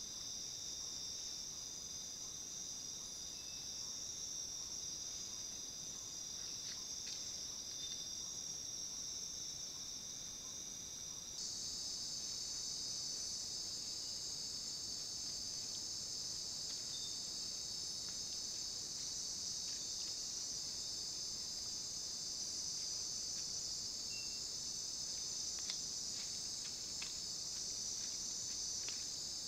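Dense, steady chorus of night insects, a shrill high-pitched wall of sound. It changes abruptly in pitch and grows a little louder about eleven seconds in. A few faint ticks sound near the end.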